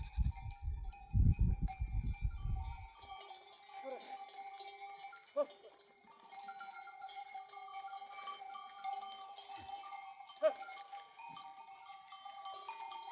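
Bells hung on a flock of sheep, ringing and clanking steadily as the animals move, with a few short sheep bleats. A low rumbling noise runs through the first three seconds.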